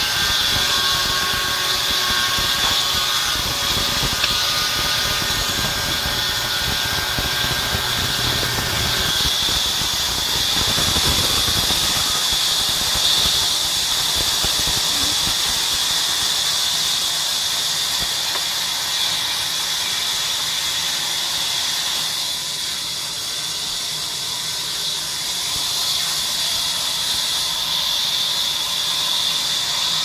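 Large sawmill band saw ripping a long wooden plank lengthwise, its blade giving a steady high-pitched whine over the hiss of the cut.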